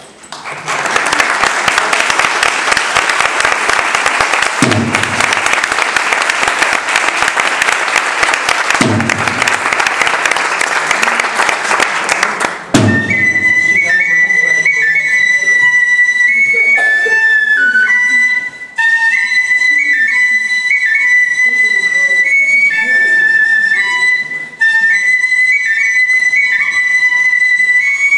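For about the first half, a dense clattering noise with three low drum strokes about four seconds apart. Then a Japanese transverse flute plays a high melody of held notes stepping up and down.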